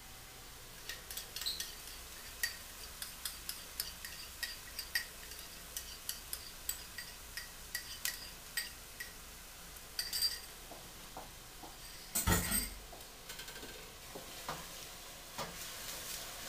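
A spoon tapping and scraping against a small bowl, two or three sharp clicks a second, as seasoning is scraped out into a pot of frying onions, with a faint sizzle underneath. One much louder knock about twelve seconds in.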